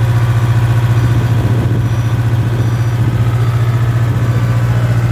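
Komatsu PC60 mini excavator's diesel engine running at a steady speed close by, a constant low drone with an even pulse.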